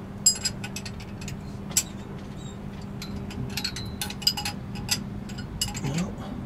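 Irregular metallic clinks and ticks of a spanner working on a threaded pipe-thread sensor as it is screwed into the boat's engine, some with a short ringing edge.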